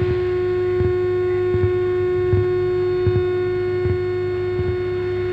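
Active speaker's amplifier with a Bluetooth MP3 module putting out a steady whine (desing) with the volume up, a fault the repairer puts down to the MP3 module not being properly grounded. A soft low thump comes about every three-quarters of a second under the whine.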